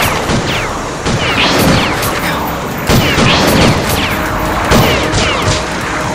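Added action sound effects for a fiery energy-ball attack: a run of quick falling whooshing zaps with sudden impact hits, one about three seconds in and another near five seconds.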